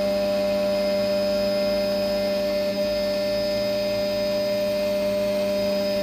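Xhorse Dolphin key cutting machine's spindle motor running with a steady, even whine as it starts cutting a Honda HON66 key blank.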